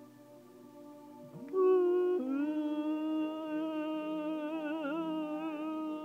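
A man humming: a short note about a second and a half in, then a step down to one long held note that wavers a little near the end.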